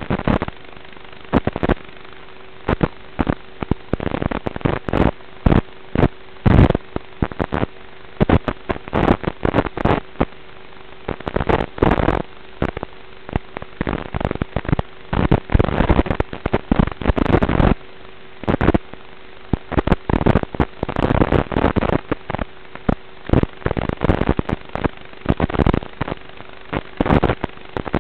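Static from an analog FPV video link's audio channel: irregular loud crackling bursts over a steady hum, which come as the radio signal breaks up while the racing drone flies.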